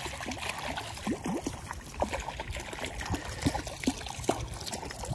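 Hooked brown trout splashing at the surface of a creek: a run of short splashes, plops and drips over the steady sound of flowing water.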